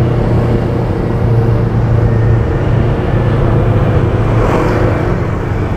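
Steady road-traffic noise from a busy street: a low engine drone under a haze of traffic and tyre noise, with a brief louder swell about four and a half seconds in.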